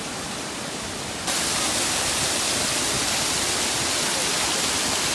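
Water pouring over a stacked-stone waterfall into a pool, a steady rushing; about a second in it turns louder and hissier.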